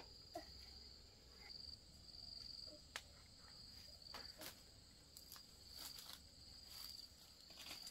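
Faint, steady high-pitched insect trilling that swells and eases every second or so, with scattered light clicks and taps.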